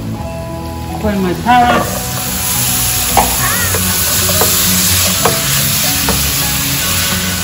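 Shrimp, carrots and onions sizzling in a stainless steel pan while they are stirred with a plastic spatula that knocks against the pan a few times. The sizzle comes in about two seconds in, after a brief squeaky glide.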